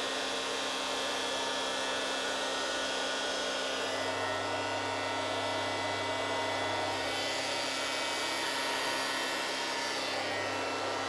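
Makita 2012NB thickness planer with a helical carbide-insert cutter head running steadily. From about four seconds in, it is planing a hardwood board and the motor is under load.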